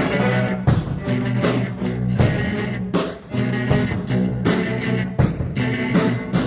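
Background rock music with guitar and a steady drum beat, about two hits a second.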